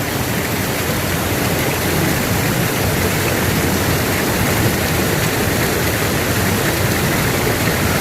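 Steady rushing of water tumbling down a rocky mountain stream.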